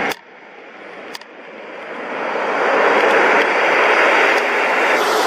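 Twin-turboprop military aircraft's engines and propellers running as it rolls along the runway toward the listener. The noise swells over about three seconds and then holds loud and steady.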